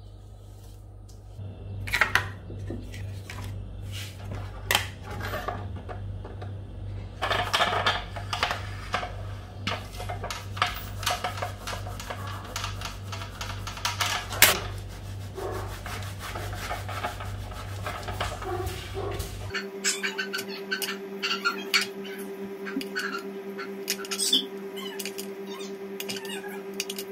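Hands working fondant on a cake: plastic fondant smoothers rubbing and tapping against the fondant-covered cake, with scattered clicks and handling noises. A steady low hum underneath changes to a higher hum about two-thirds of the way through.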